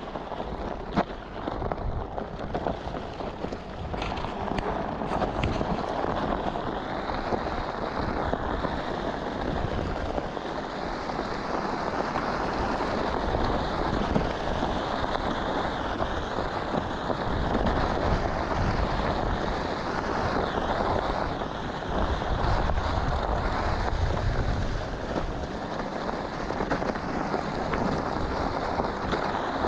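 Onewheel electric board's tyre rolling over a desert gravel trail: a continuous crunching hiss from the gravel, with gusts of wind buffeting the microphone in low rumbles now and then.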